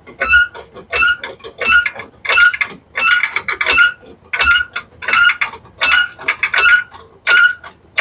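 Repeated squeaking, about two squeaks a second at a steady pitch, as a truck is jacked up.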